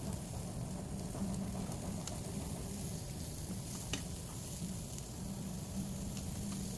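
Pork sizzling on a Korean barbecue grill plate, a steady crackling hiss of fat frying, with a couple of light clicks from the metal tongs about two and four seconds in.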